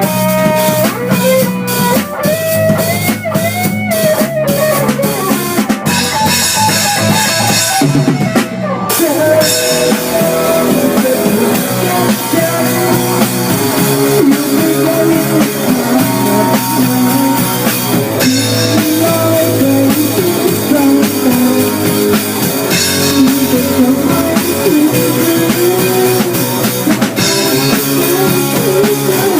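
Rock music played on drum kit and guitar, with a cymbal-heavy drum fill about six to eight seconds in.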